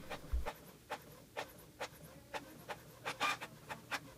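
Canon MG3520 inkjet printer printing a page: a regular rhythm of short strokes, about two to three a second, as it works down the sheet. There is a soft low bump just under half a second in.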